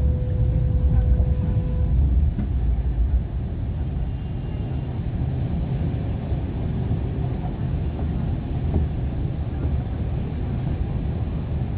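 Cabin running noise of a first-generation light rail car under way: a steady low rumble of wheels on track with a thin, steady high whine. A brief tone sounds in the first two seconds, and the rumble eases slightly about three seconds in.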